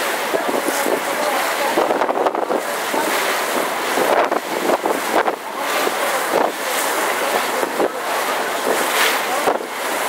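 Seawater rushing and splashing as a moving yacht's hull throws up a foaming wave, surging irregularly, with wind buffeting the microphone.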